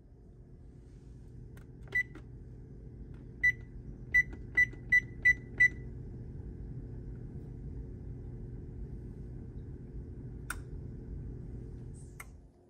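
Frigidaire electric range's touchpad control panel beeping as its keys are pressed to set the oven to bake at 375° and preheat: seven short high beeps, the last five in quick succession about three a second. A steady low hum runs underneath, with two sharp clicks near the end.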